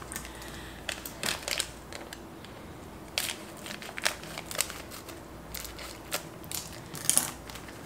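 Scissors snipping open a small instant-coffee sachet, the plastic packet crinkling in the hands in a string of short, irregular crackles.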